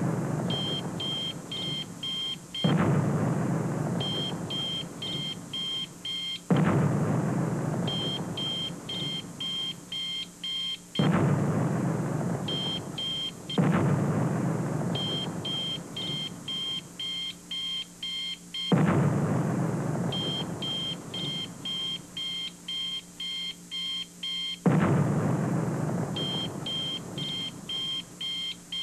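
Sound effects: a high electronic beeping like an alarm clock, in quick runs of about two beeps a second, broken six times by a sudden loud booming hit that fades away slowly over several seconds.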